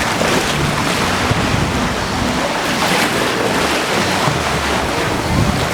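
Surf washing onto a beach, with wind buffeting the microphone in a steady rumble.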